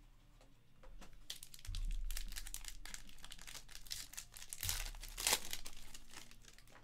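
Foil trading-card pack wrapper crinkling as it is torn open, with a loud crackle a little past five seconds in.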